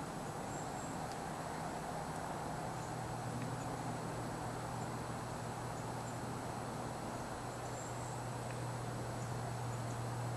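Quiet outdoor ambience: a steady low hum under even hiss, with a few faint high chirps.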